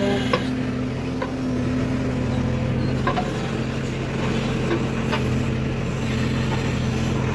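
A vehicle engine running steadily at an even pitch, with a few faint clicks.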